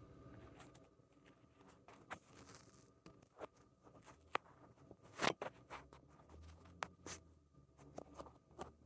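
Keyboard typing: irregular, fairly quiet key clicks at an uneven pace, with one louder clack a little past the middle.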